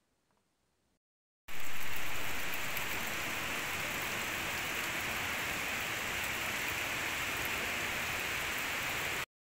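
Steady hiss of falling water, like rain, that starts abruptly about a second and a half in, is loudest at first, and cuts off just before the end.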